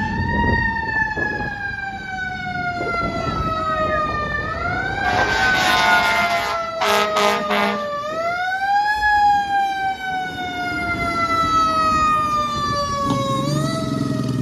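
Fire engine siren wailing, winding up quickly and then falling slowly in pitch, several times over. About halfway through come short air-horn blasts, three in quick succession. A low diesel engine rumble grows near the end as the truck pulls up close, which the uploader calls its Jake brake.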